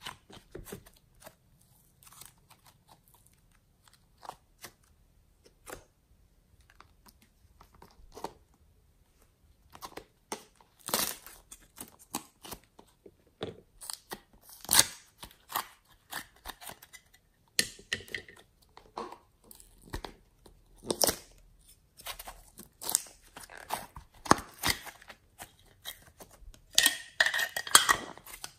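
Soft clay and slime being squeezed, stretched and torn by hand. Irregular sticky crackles and small pops come with short quiet gaps between them, and the crackling gets denser near the end as clay is worked out of a plastic mold.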